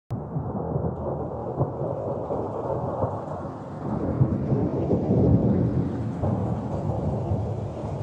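Strong wind buffeting a microphone: a dense, gusting rumble.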